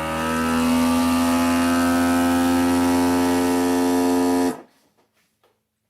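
Old countertop vacuum sealer's pump motor running with a steady hum while it draws the air out of the bag and seals it. It cuts off suddenly about four and a half seconds in, leaving only a few faint clicks.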